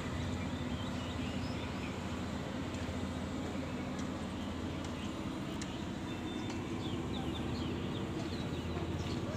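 Birds chirping over a steady low hum, the chirps coming thick and fast from about four seconds in.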